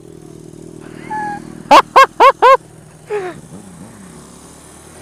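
A motorcycle engine idling steadily. Just before two seconds in, four very loud, quick, high-pitched whoops close to the microphone break over it, each rising and falling in pitch, followed a second later by a single falling cry.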